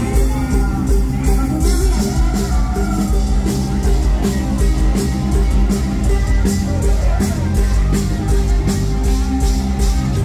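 Live Thai mor lam band music, loud, with heavy bass and a steady drum beat.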